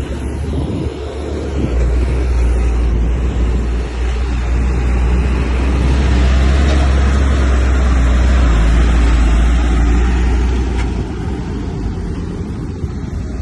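Heavy diesel earthmoving machine running with a deep, steady engine rumble that grows louder about two seconds in and eases back after about ten seconds.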